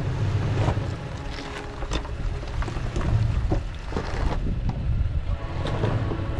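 A Toyota truck's engine running at low speed as it crawls a rocky trail, a steady low rumble with scattered sharp clicks and crunches from rocks under the tyres.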